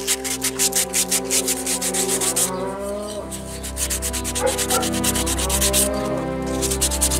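Fast, even rubbing or scraping strokes, about five a second, pausing briefly twice. Under them runs background music with sustained tones and a gliding melody.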